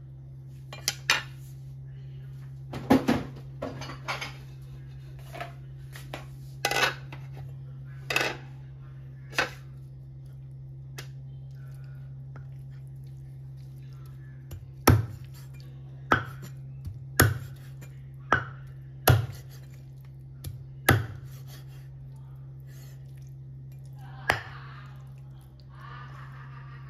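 Meat cleaver chopping raw chicken on a wooden chopping board: a run of six hard chops about one a second past the middle, after scattered lighter knocks and clatter as the pieces are handled. A steady low hum runs underneath.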